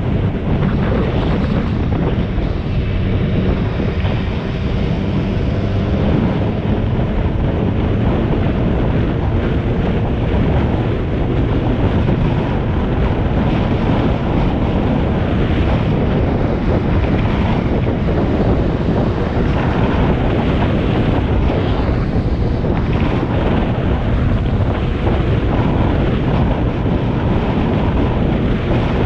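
Steady wind noise buffeting the microphone of a camera moving along a road, over an engine running underneath.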